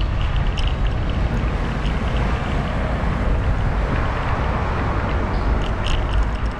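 Wind buffeting the microphone of a camera on a moving bicycle, over a steady low rumble of riding on the road. A few faint clicks and rattles come through, more of them near the end.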